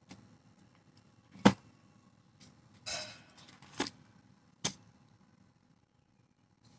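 A few sharp knocks, the loudest about a second and a half in, with a brief rustle around three seconds in, from objects being handled and set down.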